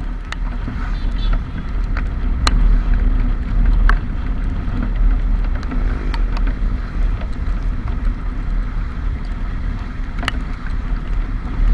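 Steady low rumble of a vehicle on the move, with wind buffeting the microphone, and scattered short sharp clicks throughout.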